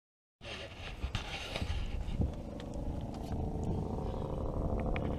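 Steady hum and rumble of a boat motor running, with wind noise on the microphone, starting suddenly about half a second in; a few sharp knocks and light splashes sound over it.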